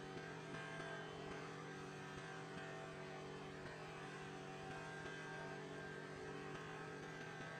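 A steady low hum made of several even tones, unchanging throughout.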